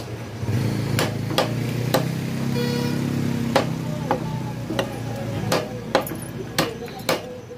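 Heavy cleaver chopping rooster meat and bone on a wooden log block, with sharp, irregular strikes about one or two a second over a steady low background hum.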